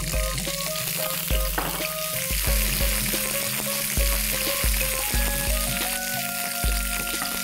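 Chopped raw green tomatoes sizzling in hot oil in a frying pan with green chillies and garlic as they are tipped in and stirred with a wooden spatula. The sizzle is a steady hiss.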